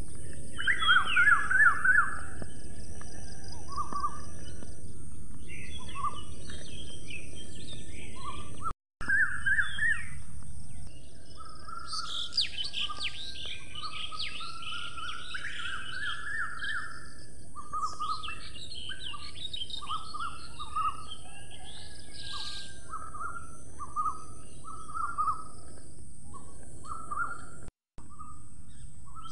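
Small birds chirping in short, repeated calls, several at once, with bursts of higher twittering about twelve seconds in and again later, over a steady high hiss. The sound drops out briefly twice.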